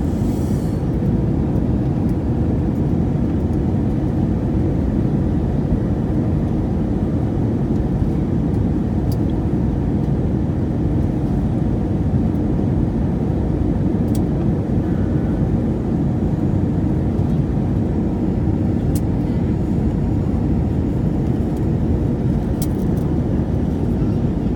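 Steady cabin noise inside a jet airliner on its approach for landing: engine and airflow noise, heavy in the low end, with a faint steady hum and a few small clicks.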